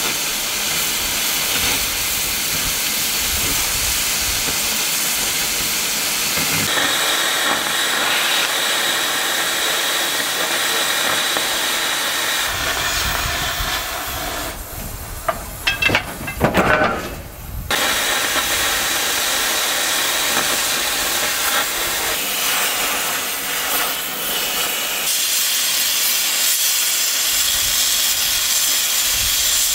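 Oxy-fuel cutting torches hissing steadily as they burn through steel, with a few sharp, loud metallic knocks about halfway through.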